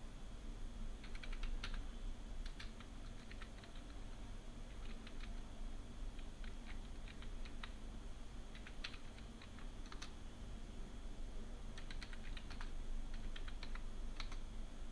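Typing on a computer keyboard in short runs of keystrokes with pauses between them, over a faint steady low hum.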